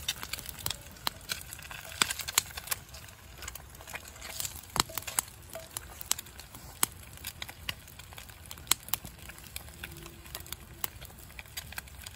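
Wood fire crackling under a grill while eggs fry in oil in a cast iron skillet: irregular sharp pops and snaps over a steady low background.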